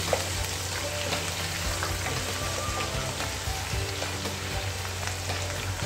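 Ginger-garlic paste and green chilies sizzling and bubbling in hot oil with whole spices, a spatula stirring and scraping through them in the pan.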